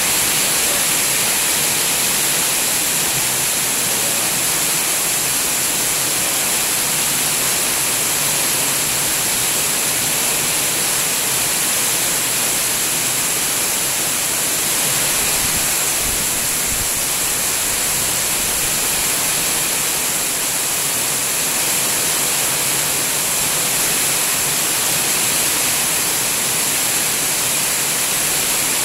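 A heavy rain downpour, a steady, even hiss.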